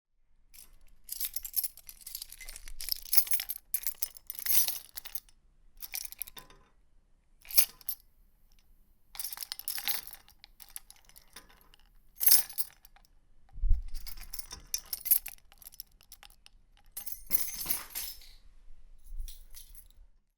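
A bunch of metal keys jangling and clinking in a series of separate shakes, some quick and some lasting a second or more, with a dull knock about two-thirds of the way through.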